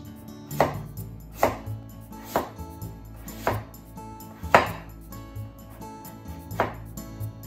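Kitchen knife slicing a daikon radish into very thin slices, each stroke ending in a knock of the blade on a wooden cutting board, about one cut a second.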